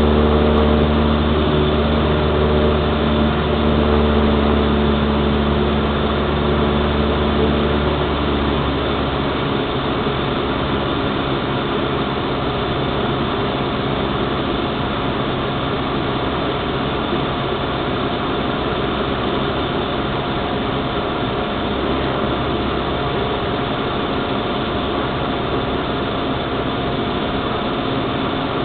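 Cessna 172's piston engine and propeller running steadily in flight, heard from inside the cabin. About nine seconds in the deepest tones fade and the sound settles a little quieter.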